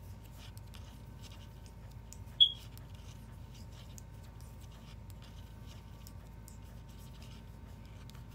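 Knitting needles clicking and scraping faintly as stitches are worked, over a steady low hum. About two and a half seconds in, one short, loud high-pitched ping stands out.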